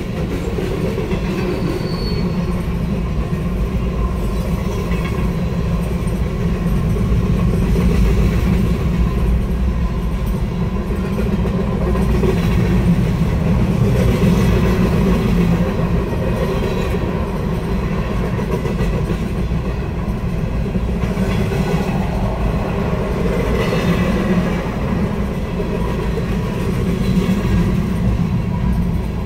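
Freight train cars (boxcars, a gondola and tank cars) rolling steadily past over a grade crossing: a continuous low rumble with the clatter of steel wheels on the rails.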